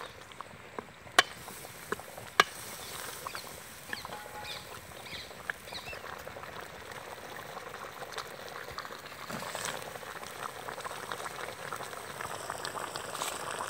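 Thick eel gravy bubbling in a metal pot over a wood fire, a steady crackle of small pops that grows denser toward the end. Two sharp clicks stand out about one and two and a half seconds in.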